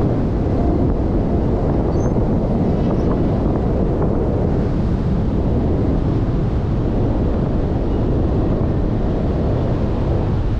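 Steady rush of wind buffeting the camera microphone, the airflow of a tandem paraglider in flight, heaviest in the low range with no let-up.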